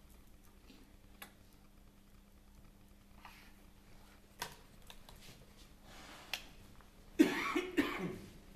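A person coughing, two or three hacks about a second before the end, the loudest sound here. Before it the room is quiet apart from a few light, sharp clicks.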